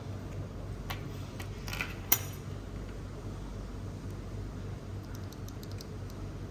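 A few scattered keystrokes on a Monsgeek M1W mechanical keyboard, the sharpest about two seconds in, then a run of faint light clicks near the end, over a steady low hum.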